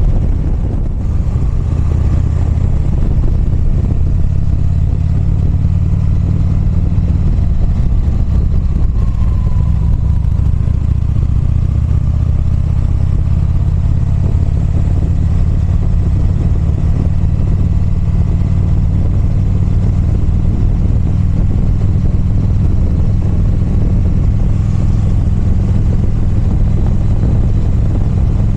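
Motorcycle engine running steadily under way, a deep continuous drone mixed with road and wind noise.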